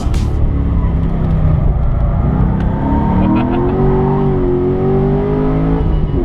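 Car engine heard from inside the cabin, revving up hard under acceleration, then dropping in pitch near the end as it shifts gear.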